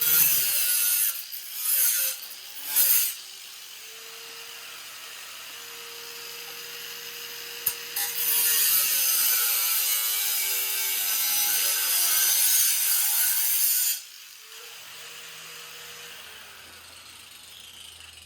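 Power cutting tool slicing through titanium exhaust tubing, its motor whine dipping in pitch under load. Three short cuts come in the first three seconds, then one long cut starts about eight seconds in and lasts about six seconds, before the motor runs on lightly loaded.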